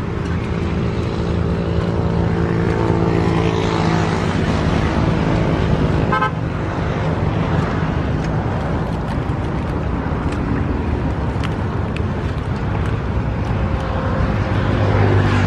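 A motor engine runs steadily, its pitch rising and shifting around four seconds in.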